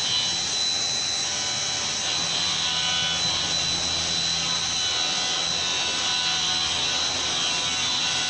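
CNC vertical milling machine cutting a metal part under flood coolant: a steady high spindle whine over the even hiss of the coolant spray and the cut.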